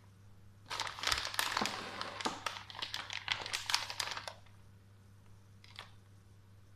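Packaging crinkling and rustling for about three and a half seconds, starting just under a second in, with a brief rustle again near six seconds, as grated cheese is being added over the dish.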